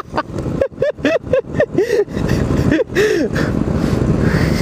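Motorcycle engines running in slow traffic, with a quick run of about eight throttle blips, each rising and falling in pitch, over the first three seconds or so.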